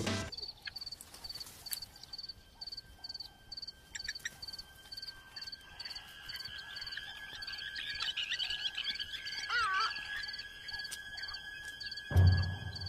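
Outdoor natural ambience: an insect or frog chirping steadily, about three chirps a second, over thin steady tones. A warbling bird call comes about two-thirds of the way through, and a loud low thud near the end.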